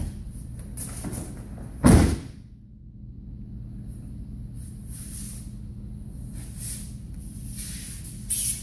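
A judoka thrown in a judo throw lands on the tatami mats with a breakfall, one loud slap-and-thud about two seconds in. A steady low hum runs underneath, and a few softer shuffles follow later.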